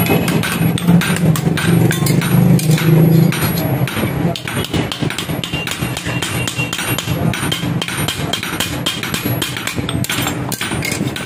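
Hammer striking hot steel on an anvil while forging a sickle blade: rapid repeated blows, several a second. A low steady hum runs underneath and stops about three seconds in.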